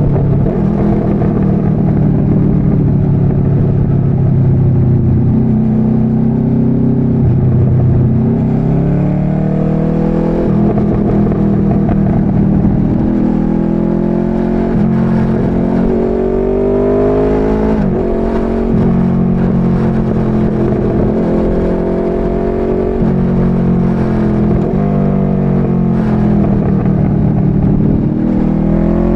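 Motorcycle engine running while riding. Its pitch climbs and falls again and again as the throttle is opened and closed, with several sudden drops in pitch where gears are shifted.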